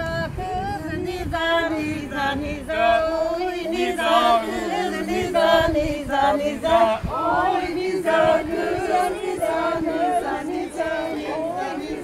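A group of voices singing a Turkish folk song together in sung phrases.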